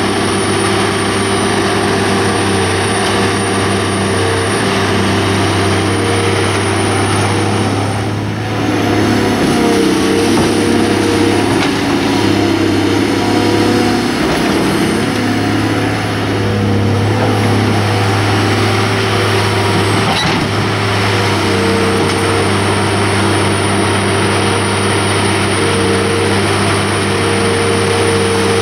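Caterpillar 345B L Series II hydraulic excavator's diesel engine running steadily while the machine digs and swings. A little past eight seconds in, the engine note shifts and grows louder; it eases back around sixteen seconds.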